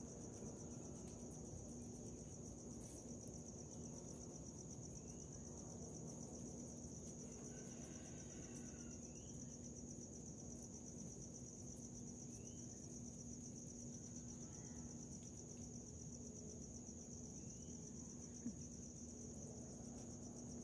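Crickets trilling steadily in one high, continuous, finely pulsing note, over a faint low hum.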